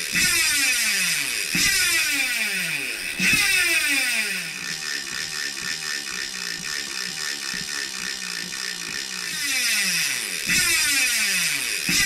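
DT Swiss star-ratchet rear hub freewheeling as the cassette is spun backward by hand: a fast ratchet buzz that slows and drops in pitch as each spin dies away, repeated several times. In the middle stretch the quieter, differently paced clicking is the stock 18-tooth ratchet, with the aftermarket 60-tooth ratchet before and after.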